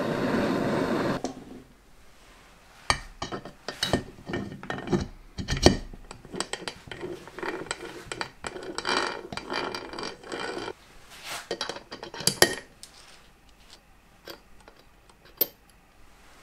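A loud steady rushing noise that cuts off about a second in, then metal parts and hand tools clinking, tapping and clattering against each other in irregular knocks for several seconds.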